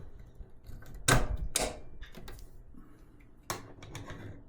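Sharp metal clicks and clunks as the air line's fitting is handled and reconnected on a PCP air compressor: a loud pair about a second in and another near the end.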